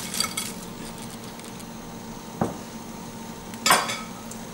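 Pieces of cleaned blue crab tipped into a stainless steel pan of thick masala, the shells landing with soft clicks. Then one sharp knock about two and a half seconds in and a short clatter near the end, over a low steady hum.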